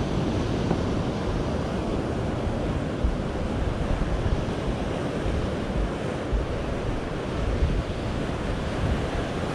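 Surf washing steadily onto a rocky shore, with wind buffeting the microphone in irregular low gusts.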